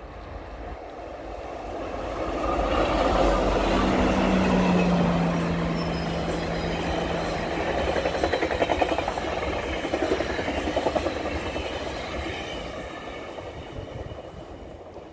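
Two GO Transit MP40 diesel locomotives and their bilevel coaches passing at about 100 km/h. It builds to a peak a few seconds in, with a low steady engine tone, then a fast rhythmic clatter of wheels on rail as the coaches go by, and fades as the train moves away.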